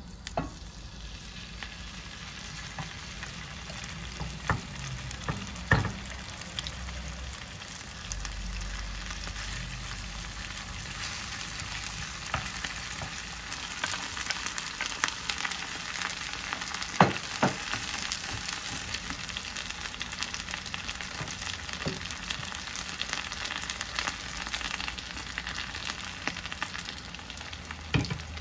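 Garlic, then chives and shrimp, frying in hot oil in a nonstick pan and stirred with a wooden spoon: a steady sizzle that grows louder after about eight seconds. A few sharp knocks stand out above it.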